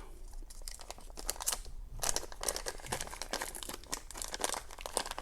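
Packaging crinkling and rustling in irregular crackles as a wrapped challenge lock is unwrapped by hand.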